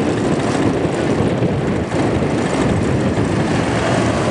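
Steady engine and road rumble of a moving vehicle, heard from the vehicle itself as it drives along.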